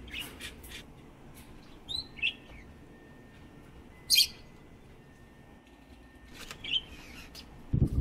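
Caged pet birds, budgies and cockatiels among them, giving a few scattered chirps and short calls, with one sharp chirp about four seconds in.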